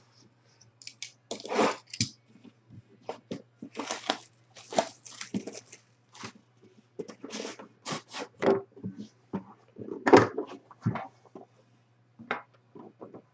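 Plastic shrink-wrap being torn and crinkled off a sealed cardboard trading-card box in irregular crackling bursts, then the box handled and its lid opened, over a faint steady low hum.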